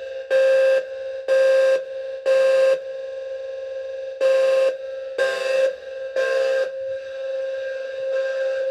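Two fire alarm horns sounding at once: one coded in temporal-three, three half-second blasts, a pause, then three more, over the other horn's continuous steady tone.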